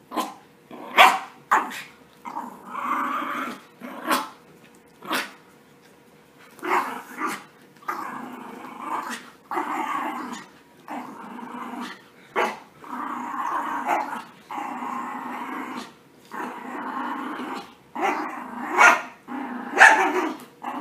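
Yorkshire terrier puppies play-growling in repeated runs of about a second while tugging at a toy, broken by sharp, short barks, the loudest two near the end.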